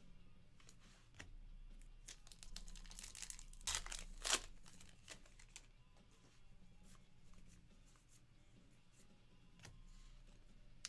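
A stack of baseball trading cards being flipped through by hand: cards sliding and flicking against each other in quick, scratchy rustles and light clicks, with two louder snaps about four seconds in.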